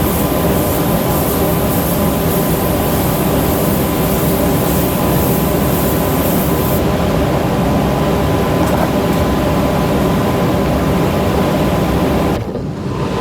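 Loud, steady mechanical noise of a running machine with a constant hum, changing abruptly near the end.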